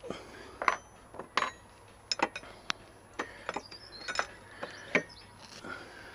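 Metal spanner clinking and knocking against the Hayabusa's rear wheel and chain-adjuster parts as it is fitted in place. About a dozen sharp, irregular clinks, the loudest about a second in and near the end.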